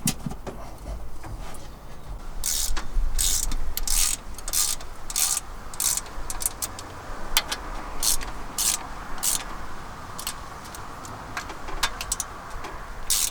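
Ratchet wrench working bolts on a Ford 400 V8's valvetrain, clicking in short runs of strokes at an uneven pace, with wind rumbling on the microphone.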